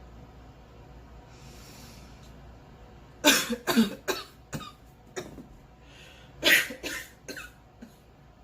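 A girl coughing in two fits. There is an audible in-breath, then a run of about six coughs, another in-breath, and a second run of three or four coughs ending with a small one. The cough is a persistent one that has lasted all morning.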